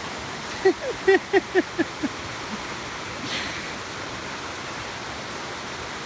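A man's burst of laughter: six or seven quick 'ha' pulses, each dropping in pitch, over about a second and a half, then a faint breath. A steady rushing noise runs underneath.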